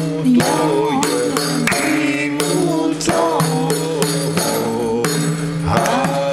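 Epirote def, a large frame drum with metal jingles, struck in a quick rhythm of about three beats a second, the jingles splashing on each stroke: the characteristic Epirote def sound. A voice sings along over the drumming.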